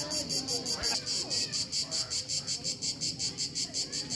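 Cicadas singing in the trees: a loud, high, rapidly pulsing buzz at an even rhythm of about four to five pulses a second.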